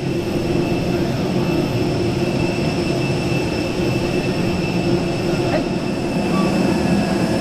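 Parked jet airliner running on the apron: a steady roar with a constant high-pitched whine over it.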